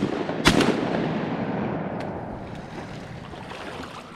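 Two shotgun shots at a mallard coming into the decoys, the first right at the start and the second about half a second later. The second report echoes and fades away over the next few seconds.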